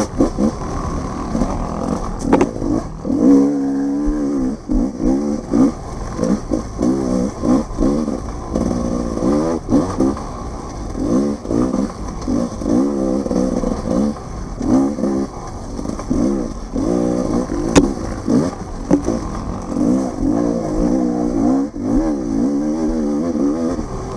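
Dirt bike engine revving up and down over and over as the throttle is opened and shut about once a second, the way a rider works it through a tight off-road trail. Two sharp clicks cut through, one early and one about three quarters of the way in.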